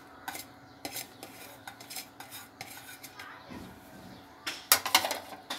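Cutlery clinking and scraping against a ceramic plate and bowl as chopped cabbage is pushed off the plate into a mixing bowl, in scattered light clicks, with a louder cluster of clinks near the end.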